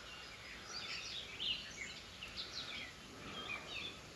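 Songbirds singing, a quick run of short chirps and warbled notes over faint outdoor background noise.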